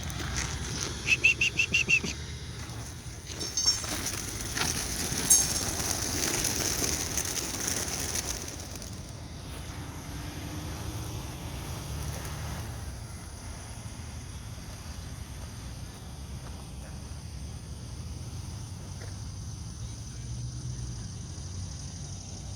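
A flock of homing pigeons being let out of their release crate. It opens with a quick run of sharp clicks and knocks. A burst of many wings flapping follows for a few seconds as the birds take off, then fades to a steady low outdoor background.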